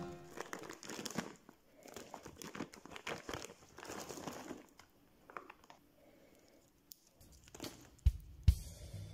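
Plastic snack wrapper crinkling and tearing as a packet is opened by hand, with irregular crackles that thin out about halfway through, then two sharp clicks near the end.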